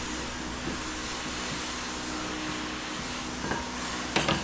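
Steady blowing noise with a faint low hum, like a running shop fan or blower. Two short clicks come near the end.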